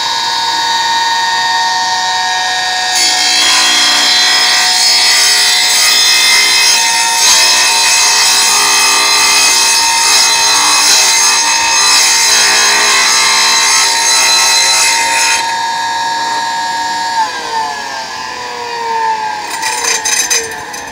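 Small tile saw's motor running with a steady whine; from about three seconds in its blade cuts through a ceramic tile for some twelve seconds, a louder, harsher grinding noise. Then the motor is switched off and winds down with a falling whine, followed by a few knocks near the end.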